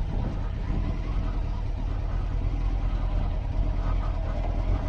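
Honda CBR900 Fireblade motorcycle's inline-four engine running steadily at low speed as the bike rolls slowly over cobblestones, a constant low rumble.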